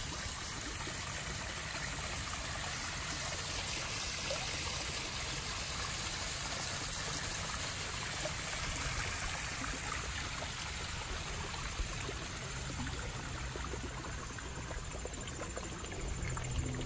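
Small garden-pond waterfall splashing steadily over stacked rocks into the pond water.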